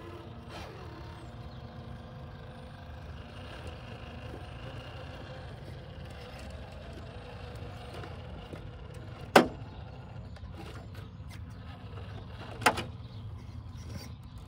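Traxxas TRX4 RC crawler's electric motor and geared drivetrain whining at crawling speed as it works across rocks. Two sharp knocks about three seconds apart, about nine and twelve seconds in, are the loudest sounds.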